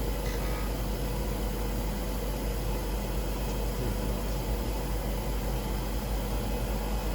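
Steady mechanical hum and hiss of a running CNC stained-glass cutting machine, with a faint steady whine.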